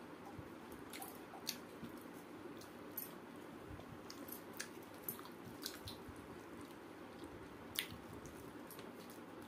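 Fingers squishing and mixing moist rice on a steel plate, with scattered sharp clicks against the metal, the loudest one late on.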